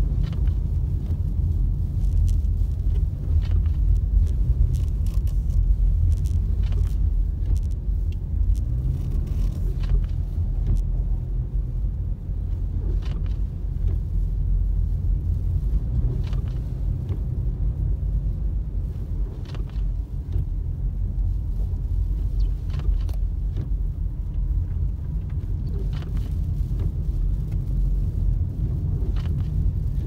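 Steady low rumble of a car's engine and tyres driving on a snow-covered road, heard from inside the moving car, with a few faint scattered clicks.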